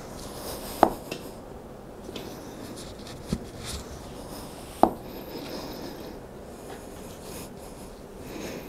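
Floor pump being worked to inflate a road bike tire to high pressure, each stroke with a short hiss of air. Two sharp snaps about four seconds apart stand out above the pumping.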